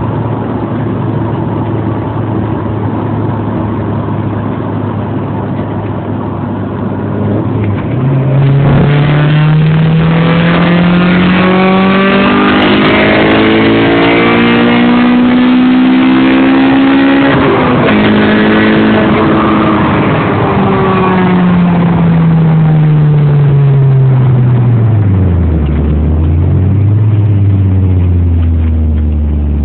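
Engine idling, then revved slowly: the pitch climbs smoothly for several seconds, holds high, and falls back to idle, dipping briefly just before it settles.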